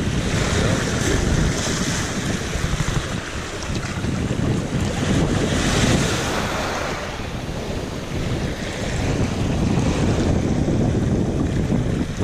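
Small ocean waves washing up the sand and breaking around the waders' legs, the surf swelling and easing as each wave comes in, with wind buffeting the microphone.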